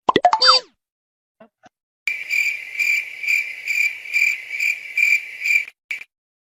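Cricket chirping sound effect: a regular run of high chirps, about two a second, lasting some three and a half seconds. It comes after a short cartoon-style effect with sliding pitch at the very start.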